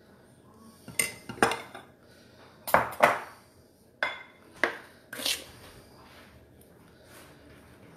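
A kitchen utensil clinking and knocking against a mixing bowl as pancake batter is scooped out and divided: a series of sharp clinks, loudest about three seconds in.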